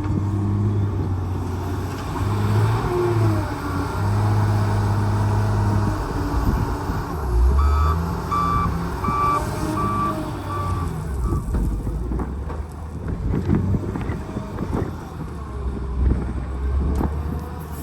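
Heavy-equipment diesel engine running, with a reversing alarm beeping in a short series near the middle. Scattered knocks and clatter follow in the last few seconds.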